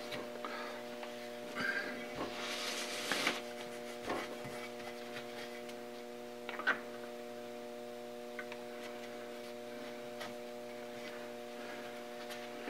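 Oily rag rubbing over a machined metal dividing-head casting, mostly in the first few seconds, with a couple of soft knocks as the casting is turned and set down. A steady electrical hum runs underneath.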